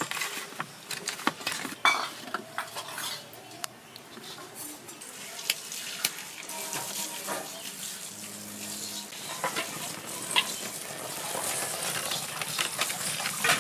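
Short clicks and crackles: hands rubbing turmeric and salt into fish on a steel plate, then dry palm fronds snapping and rustling as they are broken and pushed into a wood fire in a clay stove, with the fire crackling and hissing toward the end.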